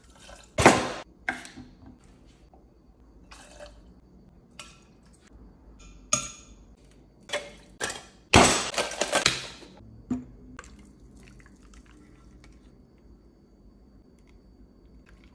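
Bar tools being handled: a stainless shaker tin and jigger clinking and tapping as liquid is poured, with a series of separate knocks and a denser clatter of about two seconds around the middle.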